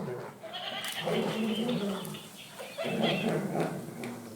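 Laughing cat toy letting out its recorded cackling laughter, in two bouts.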